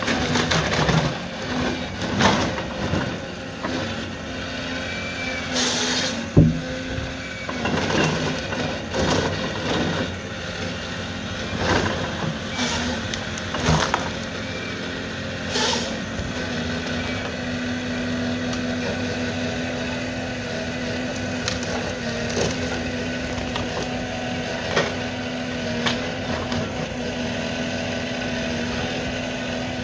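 John Deere forestry harvester's diesel engine and hydraulics running steadily while the harvester head grips and processes pine trees. In the first half, branches and wood repeatedly crack and snap. After that the machine settles into a steady hum with only an occasional click.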